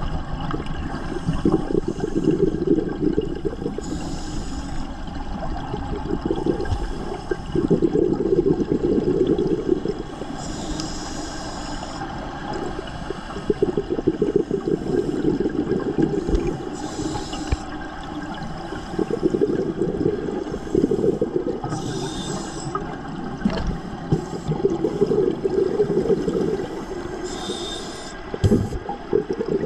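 Scuba breathing underwater through a regulator: a short hiss on each inhale, then a long rush of exhaled bubbles. About five slow breaths, one every five to six seconds.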